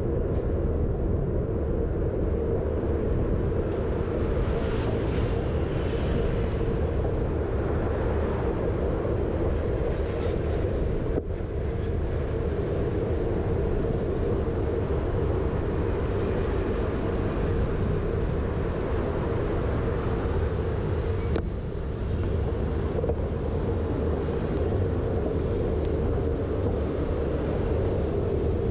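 Steady wind rush on the microphone of a bicycle-mounted camera while riding, over a low road rumble and the noise of city traffic.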